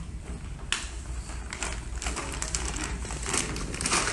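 Plastic PET bottle squeezed in the hands, giving a run of irregular crackles and crinkles from about a second in, over a low steady room hum.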